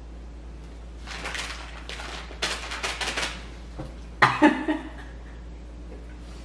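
People laughing: a run of short breathy bursts of laughter, then a louder burst about four seconds in.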